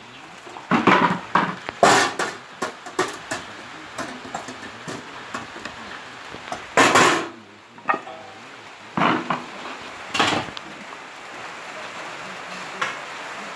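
A manual stabilized-earth block press being loaded: soil tipped from metal buckets into the steel mould hopper and tamped down with wooden sticks, giving irregular metal clanks, knocks and scrapes. The loudest is a longer clatter about seven seconds in.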